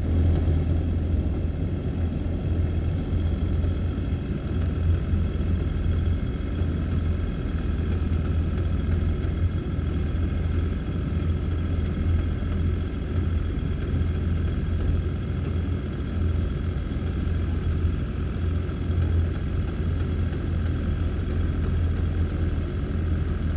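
A motor running steadily: a constant low rumble with a faint, unchanging high whine over it.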